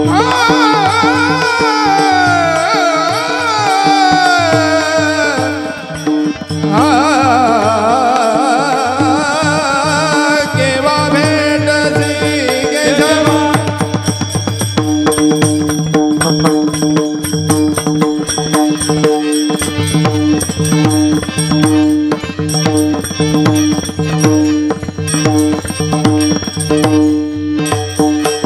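Kirtan music: a singer draws out two long ornamented phrases with wavering, falling pitch over a steady harmonium drone. From about halfway, fast mridang drumming takes over alongside the held harmonium notes.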